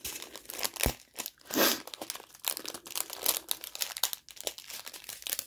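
Small clear plastic bags of diamond-painting drills crinkling as they are handled and moved about, in an irregular run of crackles with the loudest crumple about a second and a half in.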